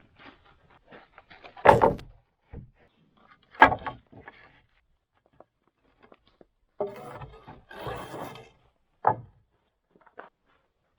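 Wooden knocks and thumps of sawn boards being handled and set down, with a short stretch of scraping in the middle.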